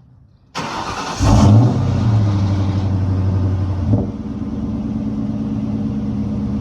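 Ford Mustang engine cold-started after sitting: the starter cranks briefly about half a second in, the engine catches with a rev flare, runs at a fast idle, then settles to a lower steady idle about four seconds in.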